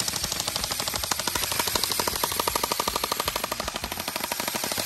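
Two airsoft electric rifles, an HK 416 AEG and a Lancer Tactical AEG, firing on full auto at the same time: a rapid, unbroken stream of BB shots.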